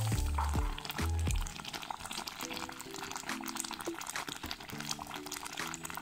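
Mellow background music with held bass notes, loudest in the first second and a half. Under it, a pot of lentils bubbles at a rolling boil with a fine, continuous crackle.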